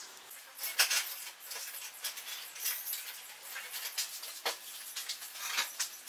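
Dry wooden branch sticks being handled on a pine board and wooden workbench: irregular light knocks and clicks with soft scraping and rubbing between them, the sharpest knock about a second in.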